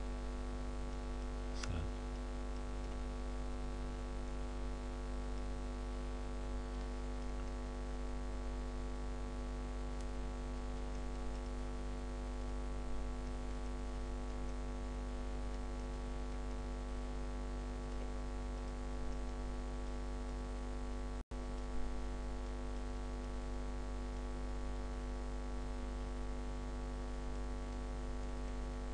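Steady electrical mains hum with a buzzy stack of overtones, picked up through the recording microphone. A faint click comes about two seconds in, and the sound cuts out for an instant about three-quarters of the way through.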